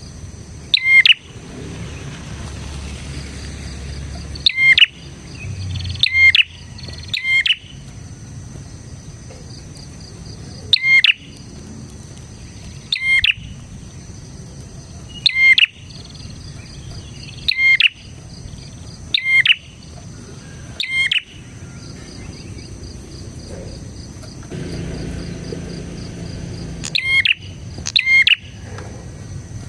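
Prinia (prenjak) singing: loud, sharp notes repeated every second or two, often in quick pairs, over a faint steady high buzz.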